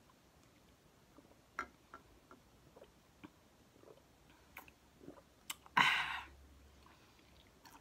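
Sipping a drink through a straw, with faint small mouth clicks and swallows, then a loud breathy exhale about six seconds in, as after a refreshing gulp.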